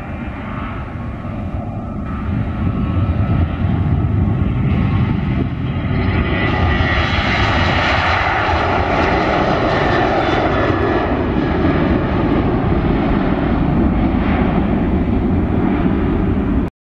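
Ryanair Boeing 737-800's CFM56 jet engines at takeoff thrust as the jet rolls past and lifts off. The roar grows louder over the first few seconds, then holds loud with a deep rumble until it cuts off suddenly near the end.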